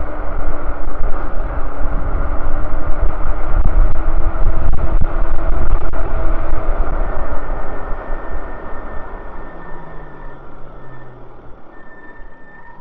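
Wind rushing over the microphone, with tyre noise on asphalt, as an e-bike coasts down a long hill. It is loud at first and dies down from about two-thirds of the way in.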